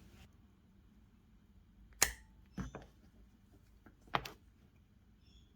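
A few short clicks and knocks of hand tools being handled, most likely a pair of grips being picked up and set on the sensor's fitting: three sharp taps, the second a quick double, with faint room tone between.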